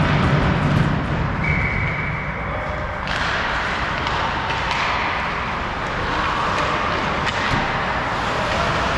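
Ice hockey arena ambience: a steady wash of noise with scattered sharp clicks, and one thin steady tone lasting about a second and a half, starting about one and a half seconds in.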